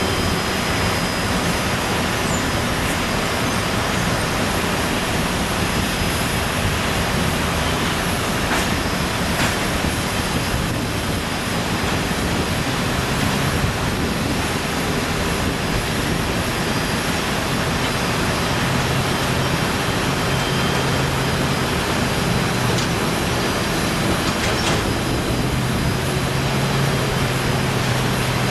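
Steady, loud roar of airport ramp noise from aircraft and ground-equipment engines running. A lower engine drone comes in twice in the second half, with a few faint knocks.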